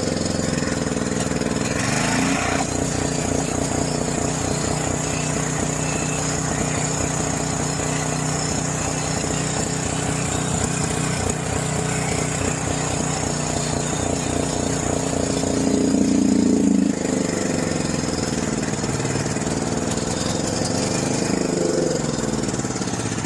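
John Deere 6200-watt portable generator's engine running rough, its speed swelling briefly a little past halfway and wavering up and down near the end. It is still struggling after its varnished carburetor was cleaned, with the carburetor not keeping up with the engine.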